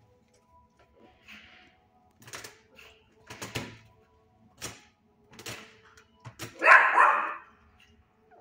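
Shelter dogs barking: several short, quieter barks, then one loud, longer bark about seven seconds in.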